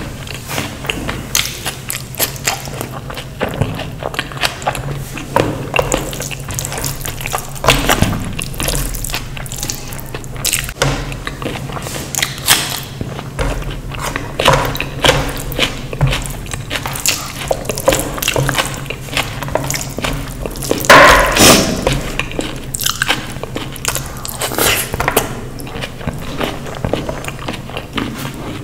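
A person eating close to the microphone: repeated wet mouth clicks, bites and chewing, with one louder, longer sound about three quarters of the way through. A steady low hum runs underneath.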